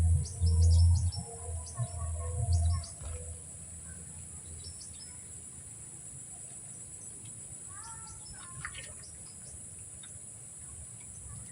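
Outdoor wetland ambience: a steady high-pitched insect drone, with short bird chirps near the start and again about eight seconds in. A low rumble runs through the first three seconds.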